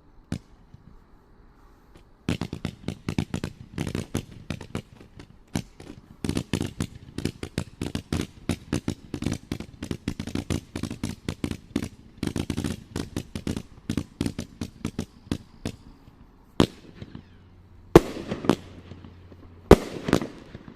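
Sugar Storm, a 129-shot 350-gram consumer aerial cake, firing: one pop, then from about two seconds in a rapid run of shots, several a second, for about fourteen seconds, followed by a few louder separate bangs with crackle near the end.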